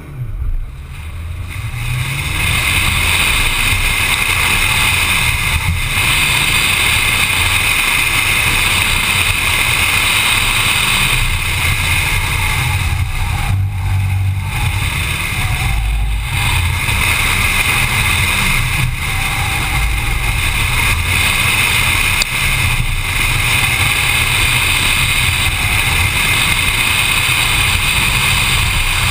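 Mitsubishi Lancer Evolution's turbocharged four-cylinder engine pulling hard as the car launches and is driven quickly through a cone course, mixed with steady road and wind noise. The sound builds over the first two seconds and then stays loud, with brief dips in level every few seconds.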